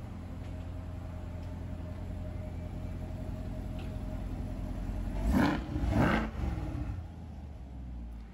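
A 2020 mid-engine Corvette's 6.2-litre V8 idling with a steady low rumble, blipped twice in quick succession about five seconds in, the revs falling back to idle after.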